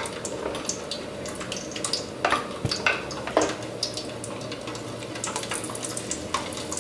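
Garlic cloves sizzling in hot oil in a wok, a steady crackle with scattered pops and a few sharper clicks between two and three and a half seconds in; a wire mesh strainer dips into the oil to lift the garlic out.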